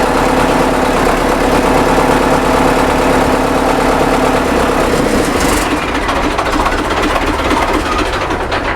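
Belarus MTZ-1025.2 tractor's diesel engine running at idle, loud and steady; its steady hum changes about five seconds in.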